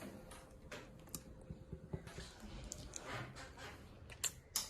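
Faint, scattered light clicks and taps of handling, a few sharp ticks spread over the seconds with quiet between them.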